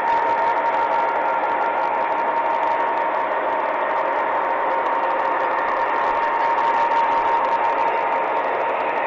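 MTH O gauge model diesel locomotives running on three-rail track: a steady whir with a constant high whine that does not change pitch.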